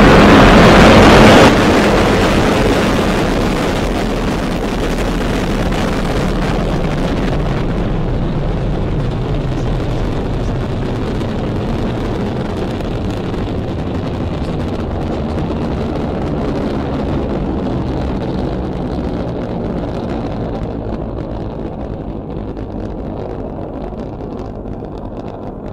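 Falcon 9 rocket's nine Merlin 1D engines at liftoff: a loud rocket roar that drops sharply about a second and a half in. It then carries on as a steady, deep rumble that slowly fades as the rocket climbs away.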